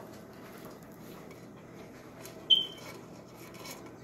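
Close-up chewing of dry cornstarch, with faint crisp crunching. About halfway through, a single sharp clink of the metal spoon rings briefly.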